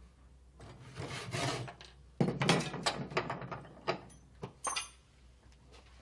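A hand tool scraping and rasping against a small wooden block held in a bench vise, in two runs of quick strokes, the second louder, followed by three sharp knocks.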